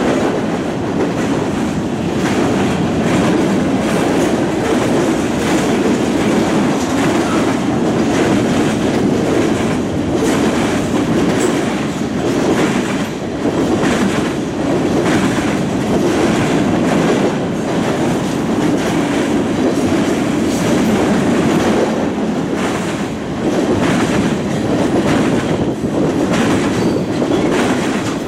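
Freight train of boxcars and tank cars rolling past: a steady rumble of steel wheels on rail, with repeated clickety-clack as the trucks cross rail joints.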